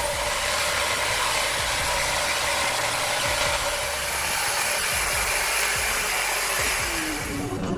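Steady mechanical running noise of a machine, an even hiss with faint steady tones, ending abruptly.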